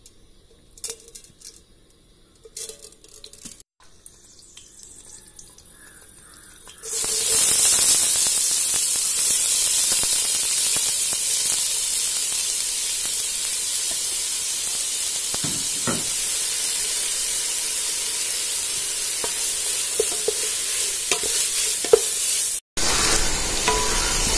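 Chopped onions hitting hot oil start sizzling suddenly about seven seconds in, and keep sizzling steadily while they are stirred with a wooden spatula.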